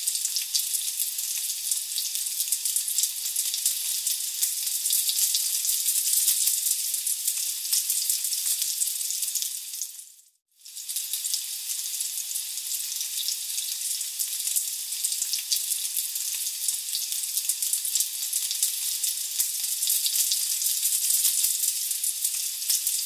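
Battered bitter gourd strips deep-frying in hot oil in a wok: a dense, steady crackling sizzle. It cuts out briefly about ten seconds in, then carries on.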